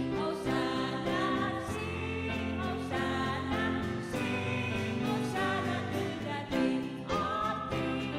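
Live worship song: several voices singing a melody together over a small band of acoustic guitar, keyboard and congas.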